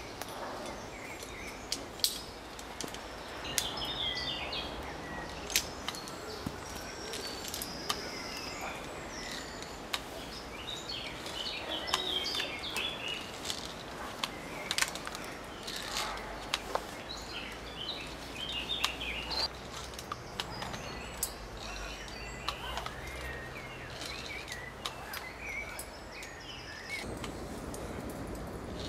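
Irregular sharp clicks and knocks from climbing gear as a climber ascends a rope, with birds chirping in the background.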